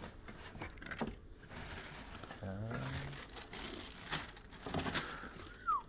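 Tissue paper crinkling and rustling as hands unwrap football boots from a cardboard shoebox, with a few light knocks of the box.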